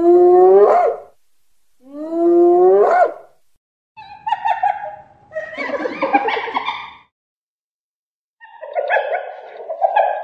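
Spotted hyena calling: two rising calls about a second each, followed by harsher, rougher calls.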